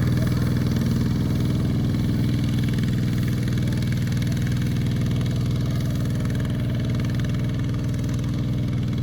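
Heavy farm machine's engine running steadily at a constant speed, with an even low drone.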